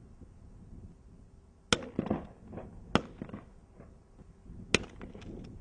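Three gunshots during a dove hunt, the second about a second and a quarter after the first and the third about two seconds later.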